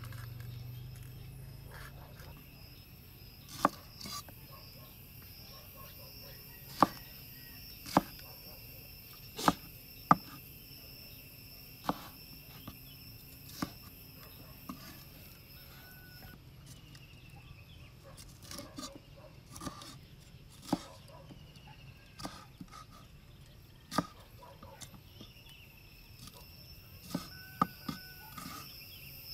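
Cleaver chopping bell peppers on a wooden cutting board: sharp knocks of the blade hitting the board, irregular and a second or two apart, with a quieter stretch in the middle and a quick run of three knocks near the end. A steady high-pitched hum sits underneath.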